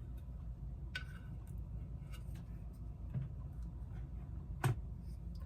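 A few light, scattered taps and clicks over a steady low hum, the sharpest near the end: a stiff stenciling brush dabbing thick snow-texture paste onto a ceramic figurine's base.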